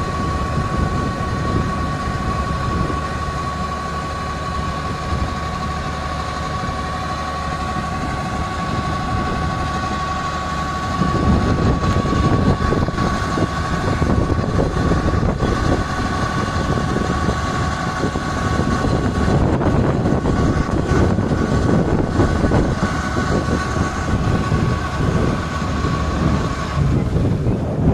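Kubota DC-70 combine harvester's diesel engine running under load while it unloads paddy through its auger, with a steady high whine over a low rumble. About eleven seconds in the noise gets louder and rougher, and the whine stops shortly before the end.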